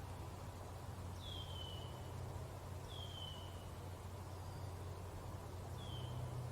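A wild bird's thin whistled call, a short note sliding down in pitch, heard three times, over a steady low background rumble.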